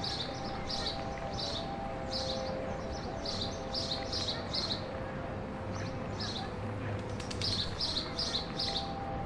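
Birds chirping in short, quick clusters of high notes every second or so, over faint steady tones.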